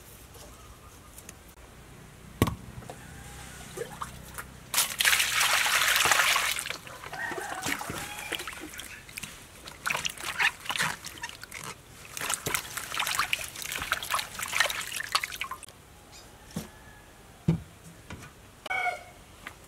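Hands washing spring onions in a stainless steel bowl of water: water splashing and sloshing in short bursts. About five seconds in there is a louder steady rush of water lasting about two seconds.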